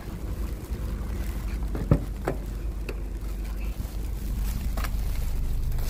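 Steady low rumble of wind on the microphone, with a single sharp knock about two seconds in and a few light clicks after it.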